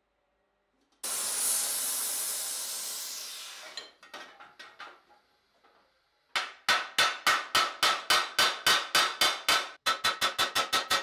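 A hiss lasting about three seconds, then a few light taps. Then a hammer strikes a red-hot spot on a steel armour visor in a rapid, even run of ringing blows, about three a second. After a brief break near the end, the blows speed up to about four a second.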